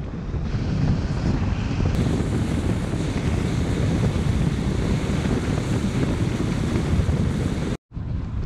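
Airflow buffeting the camera microphone during a paraglider flight: a steady, loud rushing noise heaviest in the low end. It drops out for a moment near the end.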